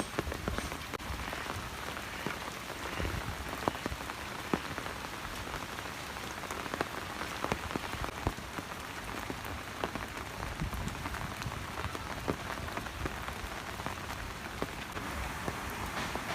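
Steady rain falling, an even hiss scattered with sharp ticks of individual drops landing.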